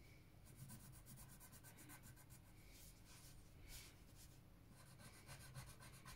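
Red coloured pencil shading on paper: faint, rapid scratching strokes.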